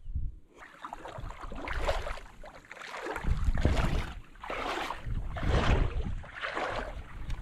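River water sloshing and splashing in uneven swells about once a second, with wind rumbling on the microphone.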